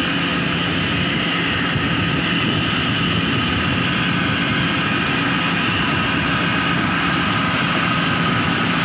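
Kaset Pattana 'Ngern Mee' rice combine harvester running steadily under load as it cuts and threshes lodged rice, a continuous even engine and machinery drone.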